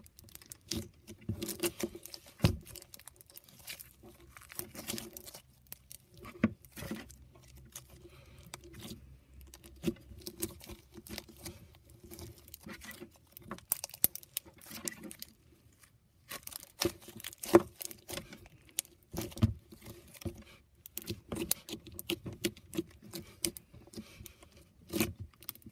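Crunchy slime being kneaded and squeezed by fingers, giving many irregular sharp crackles and pops in bursts, with short pauses about three, six and sixteen seconds in.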